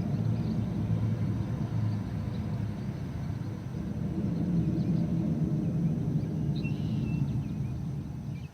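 A motor engine running steadily with a low rumble, dropping away sharply at the very end.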